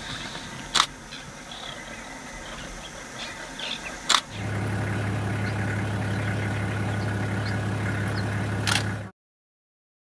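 Faint outdoor ambience broken by two sharp clicks, then, about four seconds in, the steady low hum of an idling engine starts and runs until it cuts off abruptly near the end.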